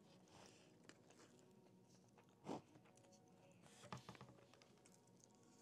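Near silence, with faint eating sounds: a plastic fork scooping rice from a paper cup and soft chewing, a brief soft rustle about two and a half seconds in and a few small clicks around four seconds in.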